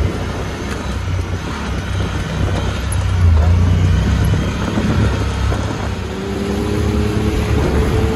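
Side-by-side UTV engine running as it drives along a trail, a steady low drone that swells briefly a few seconds in. About six seconds in, a steady higher-pitched whine joins it.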